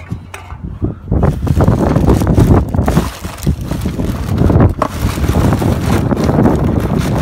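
A hand rummaging through a plastic bin liner inside a street waste bin, the plastic rustling and crackling, with wind noise on the microphone.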